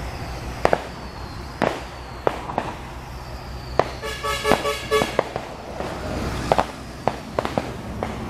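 Steel shovels and rakes striking and scraping asphalt mix on the road surface in sharp, irregular clacks, over the steady low running of a pavement maintenance truck's engine as it discharges mix down its chute. A brief pulsing tone sounds about four seconds in.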